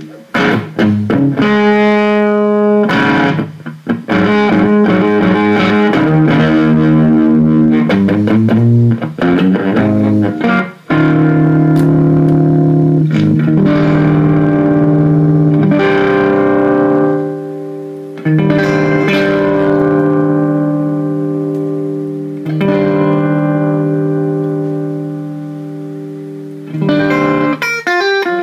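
Electric guitar played through an Egnater Rebel-20 tube amp head and speaker cabinet: chords and short runs, several chords held and left to ring out, with quicker strumming near the end.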